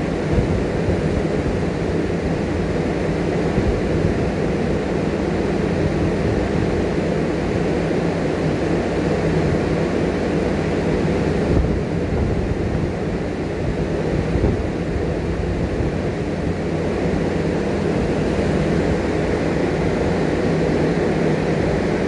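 Steady low rumble with a constant low hum underneath, unchanging throughout.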